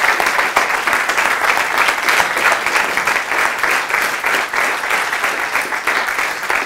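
Audience applauding: many people clapping steadily after a talk.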